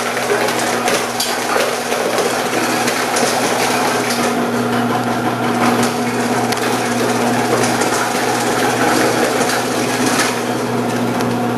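Commercial vegetable cutter running with a steady motor hum while carrots are fed down the side chute and sliced by a 2 mm slicing disc, a dense continuous crunching of carrot being cut.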